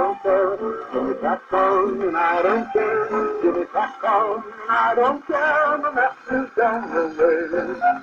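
A 78 rpm record playing on a wind-up phonograph: old recorded music with a wavering, vibrato-laden melody line. It sounds thin and boxy, with no deep bass and no top end.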